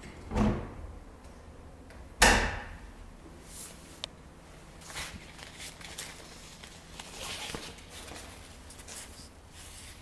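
Kitchen cabinet doors being handled, with a sharp bang about two seconds in as one is shut. Softer knocks and rustles follow as doors are opened.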